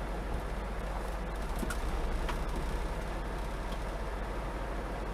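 Steady low engine rumble and cab noise of a semi truck creeping at walking pace, picked up by a dashcam inside the cab, with a couple of faint ticks about two seconds in.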